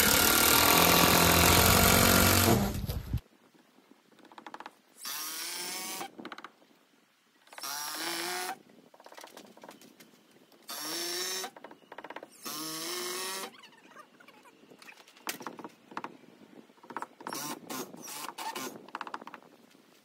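Power drill running for about three seconds, then four shorter runs of about a second each, the pitch rising as each starts. A few light taps near the end.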